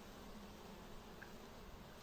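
Faint steady buzzing of honeybees in flight, a low hum just above a quiet background hiss.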